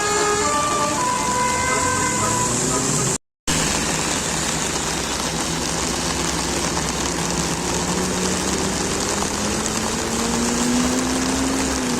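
A bus's basuri telolet horn, the multi-trumpet musical horn, playing a quick tune of stepped notes for about three seconds. The sound then drops out briefly. After that comes steady traffic noise, with a bus engine whose pitch rises slowly as it accelerates.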